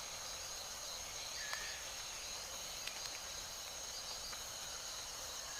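Faint outdoor nature ambience: a steady high-pitched insect drone, with a couple of faint ticks.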